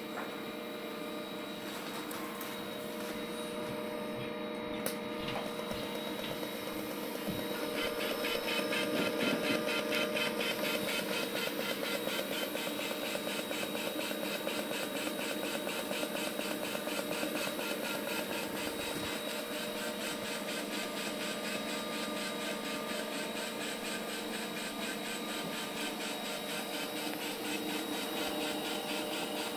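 AMI 9-2500 closed orbital welding head fusion-welding a tube: a steady hum from the welding equipment, then from about seven seconds in the TIG arc burning inside the head with a fine, even, rhythmic buzz as it travels round the joint.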